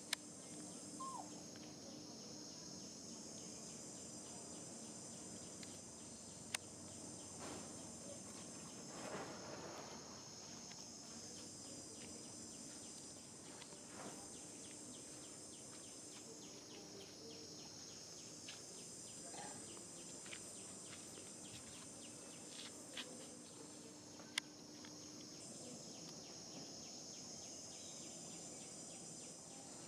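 Insect chorus: a continuous high-pitched buzz in several layers that swells and drops back every few seconds. A few sharp clicks and soft rustles stand out against it.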